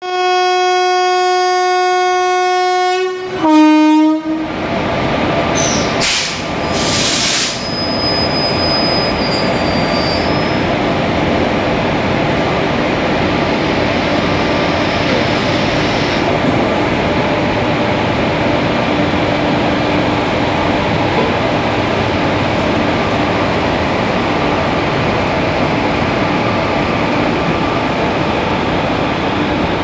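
Indian Railways locomotive horn: one steady blast of about three seconds, then a short, slightly lower note. A couple of brief sharp hisses follow, and then the train's steady rolling noise of wheels and coaches pulling away.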